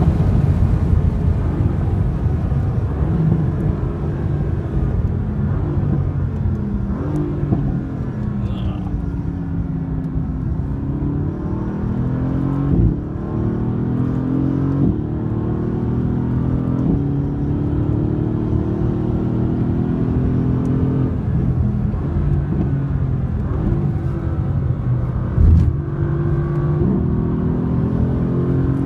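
Mercedes-AMG GT's twin-turbo V8 heard from inside the cabin while being driven hard, its pitch repeatedly rising and falling as the car accelerates and slows. Two short thumps stand out, one about halfway through and one near the end.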